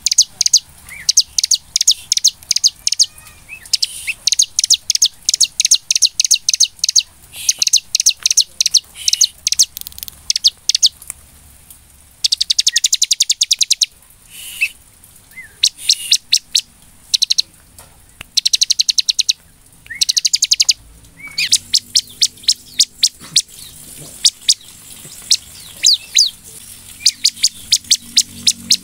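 Ciblek (a prinia) in full, vigorous song: fast bursts of sharp, high chips and rattling trills, phrase after phrase with short pauses, including one longer, denser trill about halfway through.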